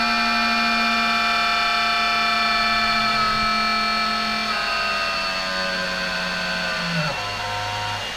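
Creality Halot 8K resin 3D printer running after being switched on: a noisy motor whine of several steady tones that steps down in pitch about four and a half and seven seconds in, then cuts off near the end.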